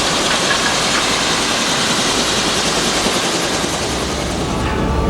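Helicopter engine and rotor noise heard from inside the cabin: a loud, steady rushing hiss. Near the end the hiss thins and a deeper rumble with a faint steady tone comes up.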